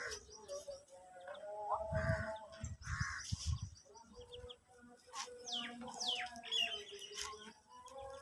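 Several birds chirping and calling, with short sharp calls and quick falling whistles. A few low thumps come about two to three and a half seconds in.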